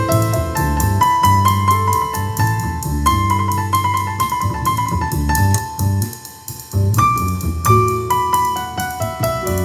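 Piano-led instrumental music played back through a pair of Dual CL270 three-way loudspeakers, with a strong bass line and a regular beat. It dips briefly quieter about six seconds in.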